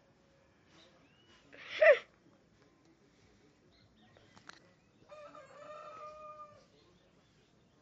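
A rooster crowing: a loud, short call about two seconds in, then a longer crow of about a second and a half that holds its pitch and drops at the end, from about five seconds in. Faint small-bird chirps come between the two calls.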